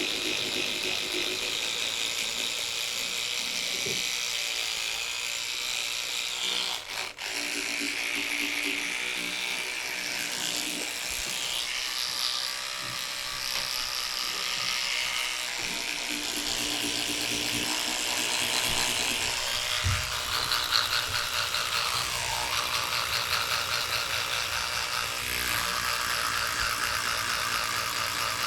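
Electric toothbrush buzzing while brushing teeth, its tone and texture shifting as the brush moves around the mouth, with a brief drop-out about seven seconds in.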